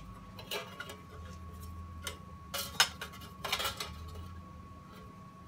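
Thin aluminum sheet-metal pieces clinking and rattling lightly a few times as they are handled and test-fitted against a steel milling-machine vise.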